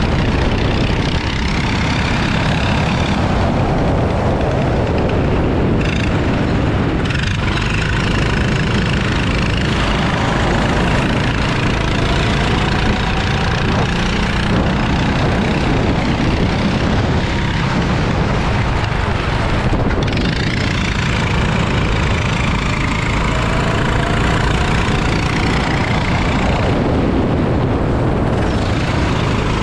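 Go-kart engine running at racing speed, its pitch rising and falling as it is driven through corners, under a steady rushing noise of wind on the microphone.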